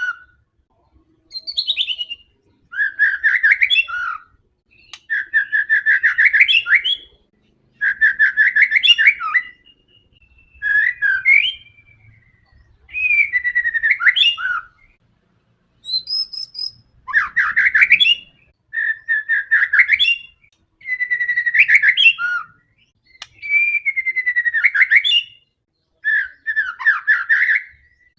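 White-rumped shama (murai batu) singing loud, rapid chattering and whistled phrases. About a dozen bursts of about two seconds each come with short pauses between them.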